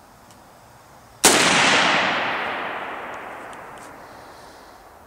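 A single shot from a Chinese-made Norinco AK-47 rifle: a sharp crack about a second in, followed by a long echo that fades away over about three seconds.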